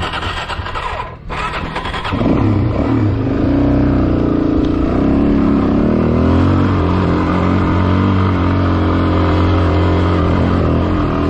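Dual-sport motorcycle engine pulling uphill on a dirt hill climb. For the first two seconds a rushing noise covers it, with a brief drop about a second in; then the engine note comes up louder and holds steady under load.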